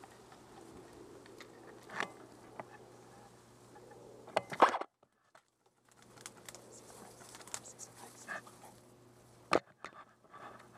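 Close rustling of tall grass and handling noise against the body-worn action camera, broken by sharp knocks: one about two seconds in, a loud cluster around the middle followed by about a second of near silence, and another sharp knock near the end.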